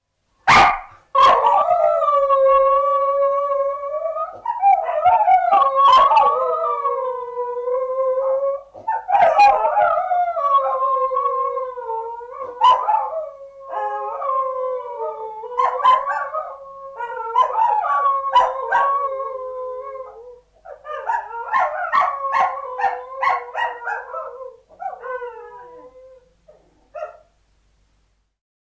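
Samoyed puppies howling together, long wavering howls overlapping one another, breaking into shorter choppy yips near the end. A sharp click sounds at the very start.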